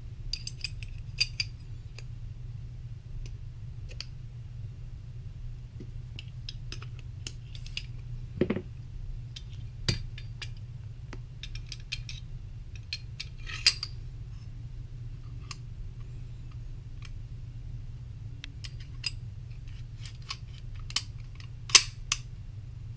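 1911 pistol parts being fitted by hand: the barrel, barrel bushing and slide clink and click against the frame as they go together. Scattered small metal clicks, with a few sharper ones near the end, over a steady low hum.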